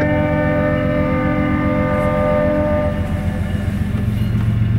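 Diesel freight locomotive's multi-note air horn sounding a long chord that fades out about three seconds in, over the steady low throb of the locomotive's diesel engine, which grows louder near the end as the train approaches.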